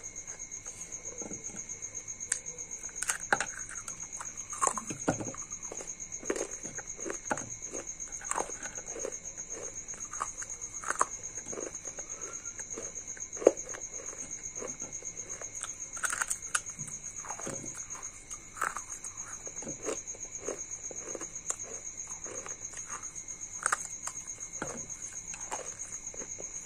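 Mouth crunching and chewing pieces of a baked clay diya (terracotta oil lamp) coated in paste: irregular crisp crunches, about one or two a second, some much louder than others. A faint steady high whine runs underneath.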